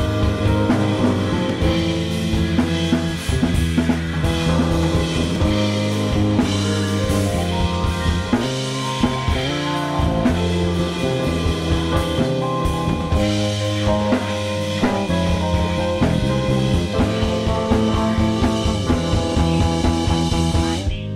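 Live band playing: a drum kit with busy snare, rimshot and bass-drum hits over an electric bass line and sustained keyboard tones.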